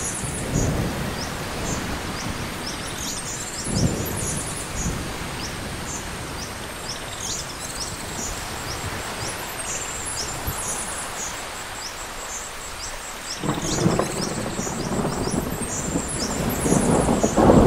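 Rain-and-thunder ambience with birds chirping in the background. Low rumbles of thunder come and go, and a louder rolling rumble builds over the last few seconds.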